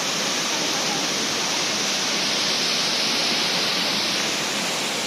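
The Rain Vortex, the indoor waterfall at Jewel Changi Airport, pouring from the roof opening into its basin: a steady, even rush of falling water.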